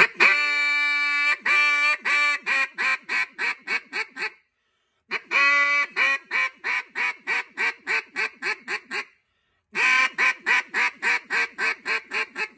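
Hand-held duck call blown in a hail call, the loud, high, aggressive call meant to reach ducks more than 200 yards out. There are three runs, each opening with a long drawn-out note and then about a dozen quick quacks that shorten and fade.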